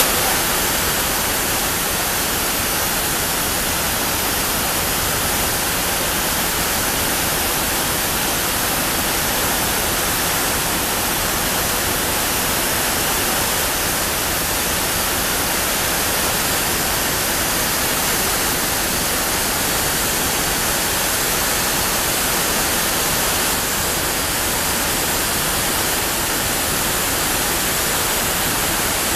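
Heavy rain pouring down in a downpour: a loud, steady, even hiss that does not let up.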